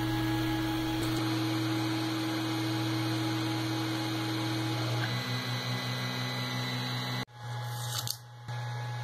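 3D printer running as its stepper motors drive a UV LED exposure head over the film: a steady hum with a higher tone that steps down in pitch about five seconds in. The sound drops out abruptly a little after seven seconds, leaving a steadier, fainter hum.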